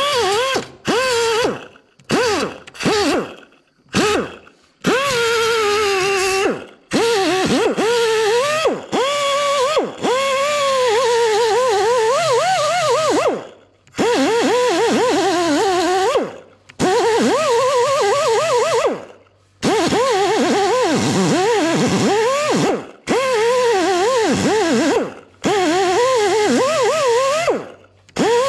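Small grinder with a ceramic quick-change (Scotch-lock style) sanding disc grinding down rough factory welds on car sheet metal. It runs in bursts, its pitch wavering up and down as the disc loads against the metal. The first bursts are short, then come longer runs of several seconds each.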